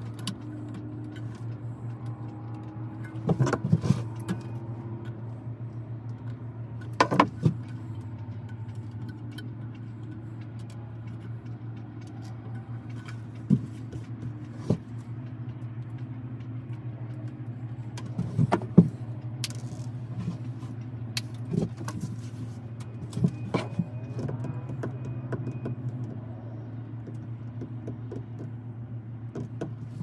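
Scattered clicks and light knocks of hands handling fiber cable at a fiber optic splice closure. A steady low mechanical hum runs underneath throughout.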